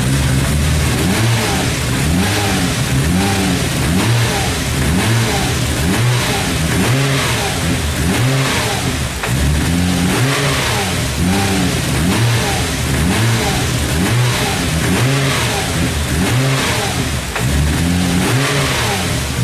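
Nissan Skyline engine being revved again and again, its pitch rising and falling about once a second.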